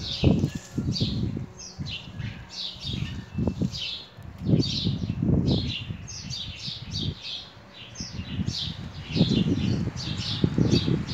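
A small bird chirping over and over, short high falling notes about two to three a second. Irregular low rumbling bursts of noise lie underneath.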